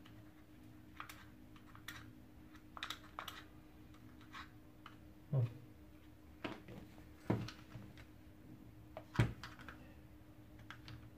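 Irregular clicks and light knocks of a vacuum cleaner floor head's plastic parts being handled and pried apart, with three heavier knocks spread through the second half.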